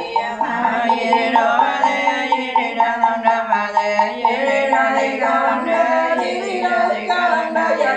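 Buddhist nuns chanting a funeral liturgy to a steady tapping beat of about three to four strokes a second.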